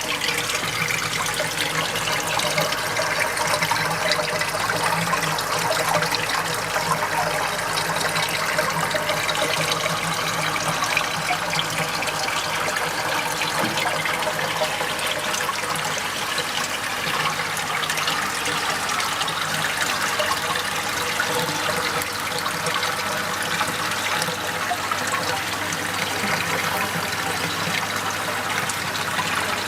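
Water running and splashing steadily through a pond filter's tanks, with a faint steady low hum beneath.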